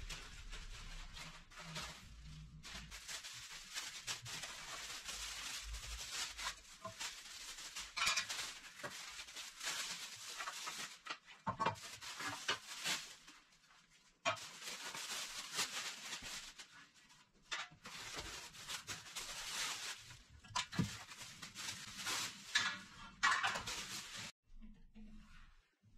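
Handling noise from assembling a bandsaw stand: rustling and short clinks as small screws, bolts and sheet-steel parts are sorted and moved about, in stretches broken by brief pauses.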